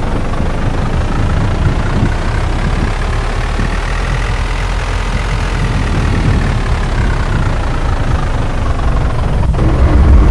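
Heavy wind rumble battering the microphone, with a whining tone that rises in pitch and then falls back over several seconds; it cuts off abruptly near the end.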